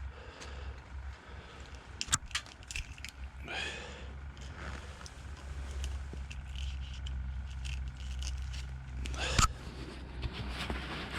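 Close handling noises while a hook is worked out of a perch's mouth: scattered small clicks and scrapes, with a louder knock about nine seconds in, over a steady low rumble.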